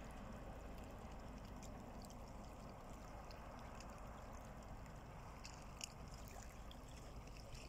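Faint water lapping and trickling against a rocky bank, with a few small splashes and a steady low rumble beneath.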